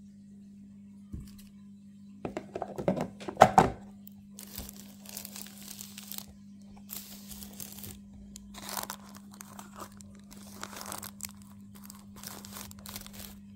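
Rustling and crinkling of hands handling things close to the microphone, with a single knock about a second in, a loud burst of crackling around three seconds, then on-and-off rustles, over a steady low hum.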